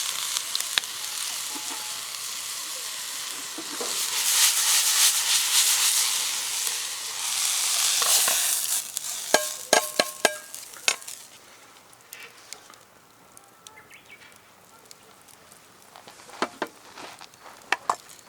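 Food sizzling and frying in a camp wok, the sizzle swelling louder about a third of the way in, then a quick run of ringing metal clinks about halfway through as the sizzle dies away, leaving only a few faint clicks.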